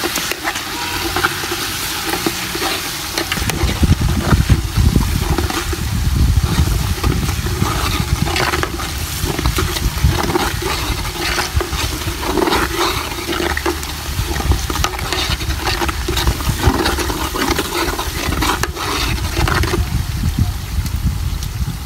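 Tomato paste and onions sizzling as they fry in hot oil in an aluminium pot, with a metal spoon scraping and stirring against the pot. A low rumbling noise sets in a few seconds in and runs underneath.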